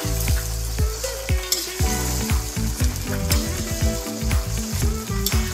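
Coconut-milk sauce with pork and long beans bubbling and sizzling in a wok as a metal spatula stirs it. Background music with a steady low beat plays under it.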